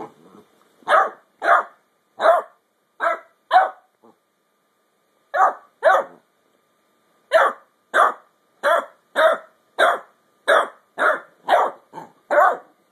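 Ten-week-old basset hound puppy barking in short, sharp barks, about sixteen in all: a quick group of five, then a pair, then a steady run of about nine. These are demand barks at an older dog for her chew bone.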